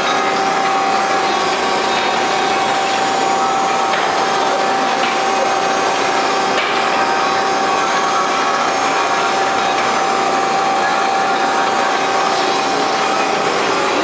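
Selco two-ram baler's 75 HP motor and hydraulic power unit running: a steady, loud mechanical noise with a constant high whine.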